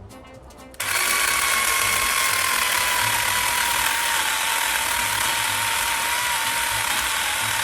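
Ryobi ONE+ cordless chainsaw cutting the face-cut notch into a dead birch trunk. It starts abruptly about a second in: a loud, high motor whine over the rasp of the chain, sagging slightly in pitch as the chain bites into the wood and then holding steady.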